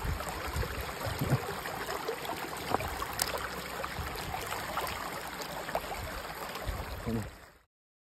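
Shallow, rocky stream water rushing and gurgling close to the microphone, with small splashy ticks through it. It cuts off abruptly near the end.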